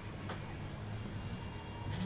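Street noise with a steady low hum from a nearby motor vehicle, and a couple of faint clicks.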